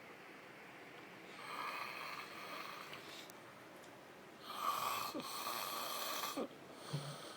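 A man snoring heavily in deep, passed-out sleep: two rasping snores, the second louder and longer.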